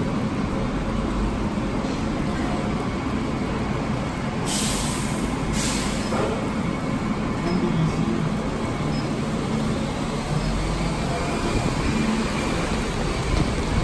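Steady low rumble of an elevated LRT station and its rail surroundings, with two short hisses of air about four and a half and five and a half seconds in.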